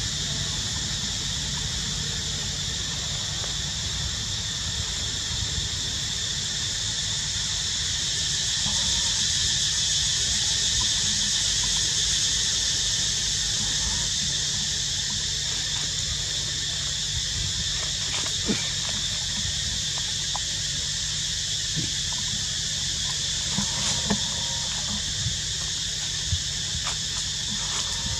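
Steady high-pitched insect chorus that swells a little in the middle, over a low rumble, with a few faint clicks.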